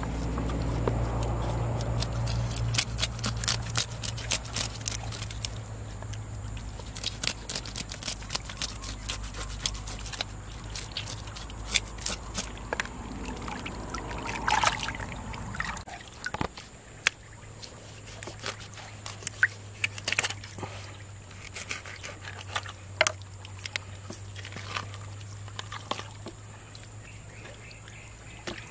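A jelawat fish being scaled with a knife on a plastic cutting board: a long run of short scratchy clicks as the scales scrape off, with water trickling and splashing on the wet fish.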